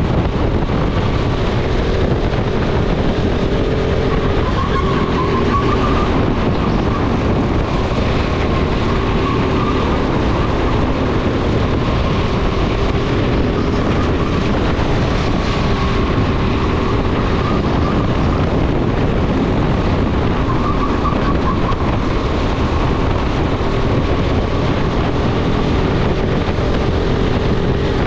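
Go-kart running at race pace around the track, its motor note wavering up and down a little through the corners, with wind buffeting the onboard microphone.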